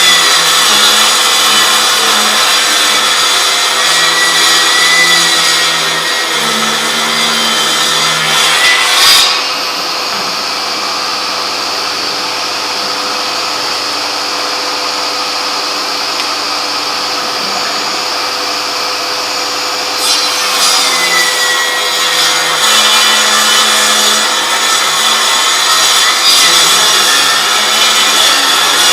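Milwaukee M18 Fuel 8-1/4-inch cordless table saw cutting wood. About a third of the way in, the sound drops to a steadier, quieter run for roughly ten seconds before the cutting noise returns.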